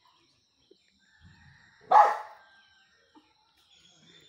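A puppy gives one short, loud bark about two seconds in.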